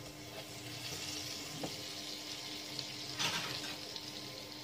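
Butter melting and sizzling in a hot non-stick frying pan, a steady hiss, as a wooden spatula pushes it around; a brief scrape of the spatula about three seconds in.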